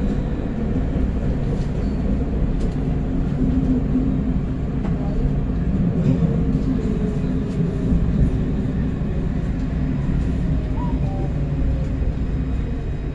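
Alstom Citadis Luas tram running, heard from on board: a steady low rumble, with a faint whine that slides down in pitch near the end.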